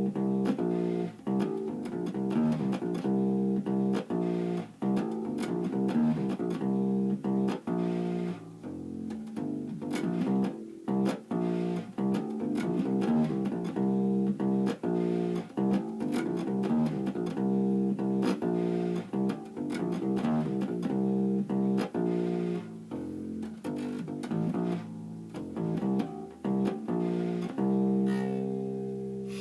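Fender Kingman acoustic bass guitar, fitted with a pinless ToneBar bridge, played through a bass amp: a steady run of plucked notes, several a second, ending on a held note.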